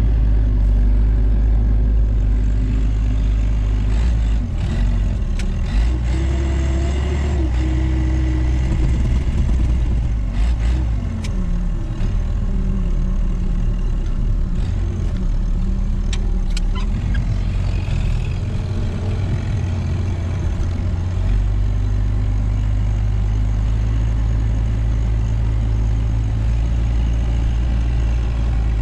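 Tractor engine running steadily, heard from inside the cab while clearing snow. The engine pitch rises and falls a few times between about 6 and 13 seconds in, and there are a few sharp knocks and clatter.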